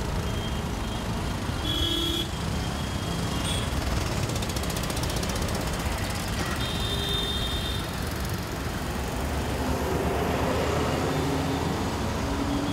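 Dense city road traffic: a steady mix of car, motorbike, auto-rickshaw and truck engines with tyre noise, broken twice by brief high-pitched tones. Near the end a bus engine passes close and the sound swells.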